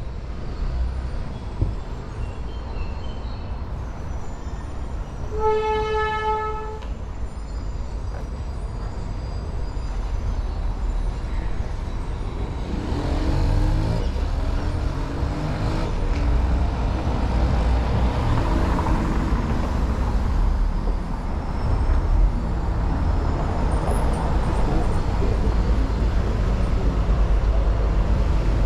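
Street traffic: passing vehicles' engines rumbling, growing a little louder and busier about halfway through. A car horn sounds once, a single steady note of about a second and a half, some five seconds in.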